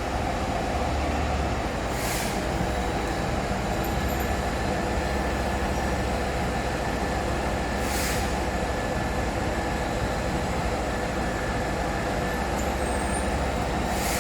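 Heavy engine running steadily at constant speed, with three short hisses about six seconds apart.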